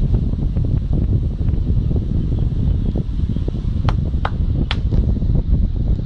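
Heavy wind buffeting on the microphone, a loud low rumble that rises and falls. Three sharp clicks come close together about four seconds in.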